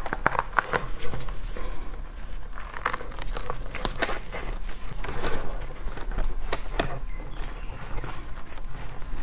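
Gloved hands pulling apart an opened durian: thin plastic gloves crinkling and the fibrous husk and pith tearing, in irregular crackles and rustles.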